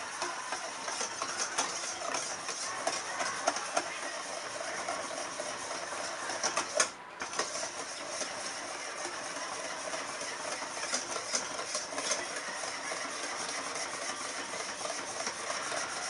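Electric hand mixer running steadily, its whisk beating a thin matcha mixture against a stainless steel bowl. It stops for a moment about halfway through, then starts again.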